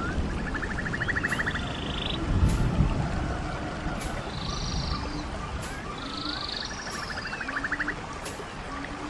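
Rainforest ambience: steady rain with repeated short buzzing animal calls and scattered bird chirps. A couple of low thuds come about two and a half seconds in.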